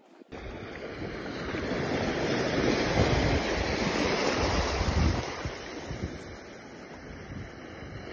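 Small sea waves washing up over a sandy shore, with wind buffeting the microphone in low rumbles. The surf and wind noise swell to their loudest in the middle and ease off after about five seconds.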